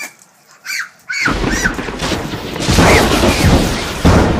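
A sudden loud explosion boom about a second in, followed by a rumbling blast that carries on and swells again near the end.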